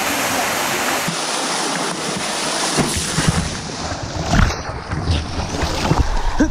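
Rushing mountain-stream water as a loud, steady roar, with wind buffeting the microphone and a few dull knocks and thumps in the second half.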